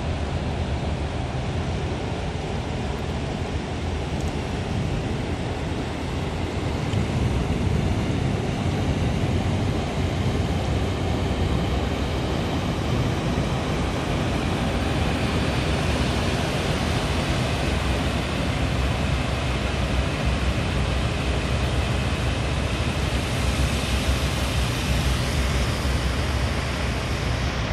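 High-speed catamaran ferry's engines running with a steady low rumble as it passes close and pulls away, over a broad rush of churning water that grows louder and brighter in the second half as its wake builds.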